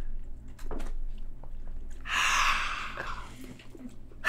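Mouth noises of a man eating, chewing and swallowing a mouthful of bagel, with a breathy exhale lasting about a second, about two seconds in.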